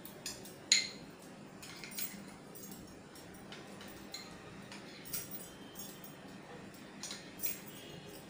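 Spoon clinking against a glass bowl while stirring a butter, cheese and cream mixture, with one sharp clink about a second in and a few lighter ones after.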